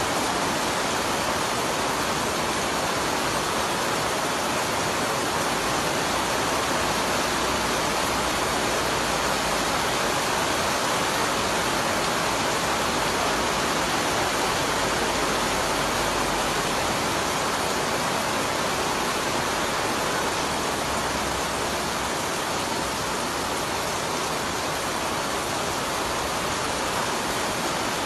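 Heavy rainstorm pouring down, a dense, steady hiss of rain that does not let up.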